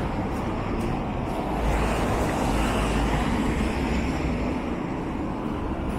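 Street traffic: a car driving past on wet asphalt, its tyre hiss and engine rumble swelling about two seconds in, over a steady background of city traffic.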